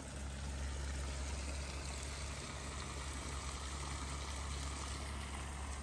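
Steady rush of water pouring out of a 3/4-inch PVC discharge line fed by a 1.5 hp sump pump, with a steady low rumble beneath it.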